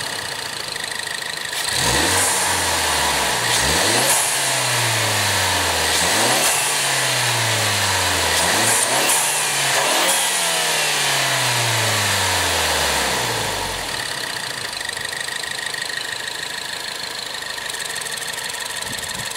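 2017 Ford Focus ST's turbocharged 2.0-litre EcoBoost four-cylinder with its stock intake, idling, then revved several times in quick succession, each rev rising sharply and falling away slowly, before settling back to idle near the end.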